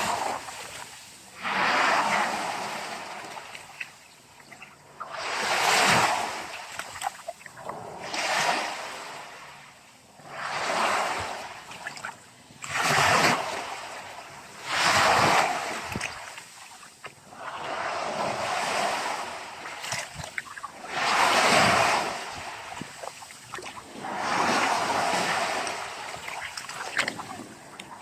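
Ocean waves breaking on the shore, a surge of surf every two to three seconds, each swelling and washing back.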